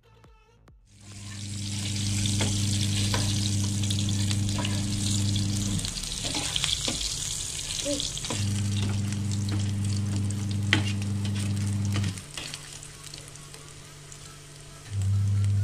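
Oil sizzling as small chunks of food fry in a nonstick frying pan, with light clicks and scrapes of a spatula stirring them; the sizzle dies down near the end. A steady low hum comes and goes three times alongside it.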